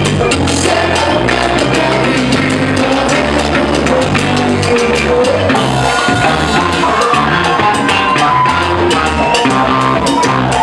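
Live band playing loudly with a steady beat: electric guitars, bass and drum kit with congas.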